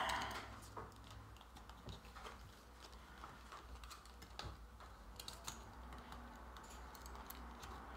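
Light, irregular clicks and taps of fingers handling small wooden craft-kit pieces on a cutting mat.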